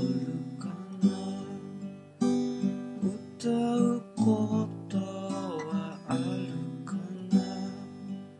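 Music: strummed acoustic guitar, a new chord about every second.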